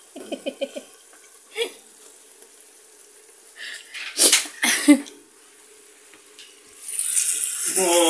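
Two sharp, breathy bursts of noise about four and five seconds in. Near the end a steady hiss starts: sliced mushrooms sizzling in a frying pan on a gas hob.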